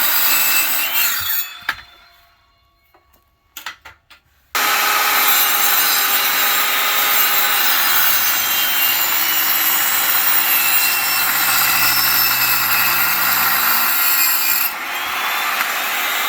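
A power saw cutting wood, in two stretches. The first dies away to near silence with a few light clicks about two seconds in; the second starts abruptly about four and a half seconds in and runs steadily to near the end.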